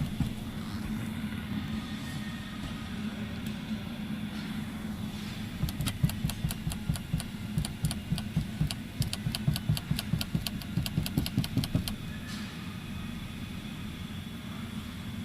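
A car's ceiling rattling while the vehicle is driven: a run of sharp, irregular clicks, several a second, starting about a third of the way in and stopping near the end, over the steady low hum of the road and engine in the cabin.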